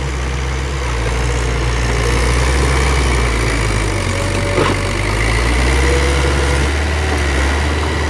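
Heavy earthmoving machine's diesel engine running steadily with a low drone, with a single sharp knock about four and a half seconds in.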